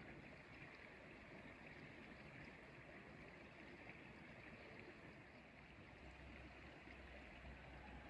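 Faint, steady sound of a shallow creek flowing over pebbles. A low rumble joins about six seconds in.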